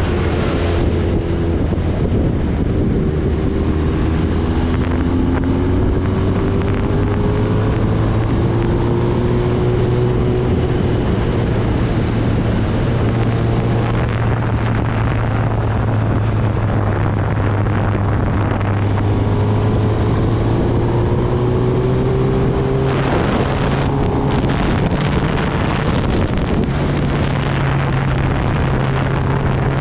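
Kawasaki Ninja ZX-10R's inline-four engine running at road speed, heard from the rider's seat under steady wind rush on the microphone. The engine note rises slowly a few times and changes pitch about 23 seconds in and again a few seconds later.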